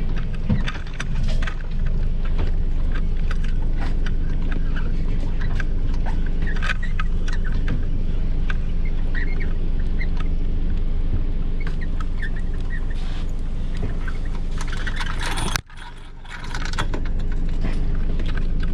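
A vehicle engine idling steadily, with scattered clicks and knocks from the catamaran's hull and rigging as someone moves about on deck. The sound drops out abruptly for about a second near the end.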